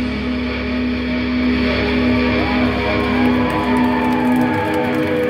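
Live rock band playing: electric guitar and bass hold long, ringing notes, with sliding, wavering guitar pitches over them and little drumming.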